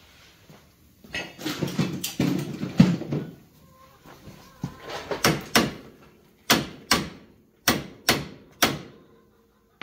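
Hammer blows on a screwdriver used as a punch, knocking a part back out of a Polaris Ranger 400's wheel knuckle. First a couple of seconds of clatter, then about eight sharp strikes, several in quick pairs.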